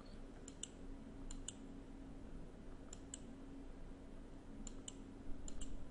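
Faint computer mouse clicks, coming in quick pairs about five times, over a low steady hum.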